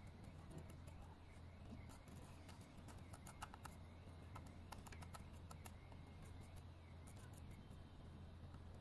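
Near silence: a steady low hum with many faint, scattered light clicks.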